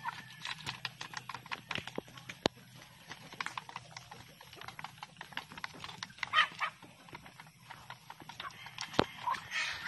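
Chickens pecking feed from a split-bamboo trough: rapid, irregular sharp taps of beaks on bamboo and hard ground. A chicken gives a short call about six seconds in.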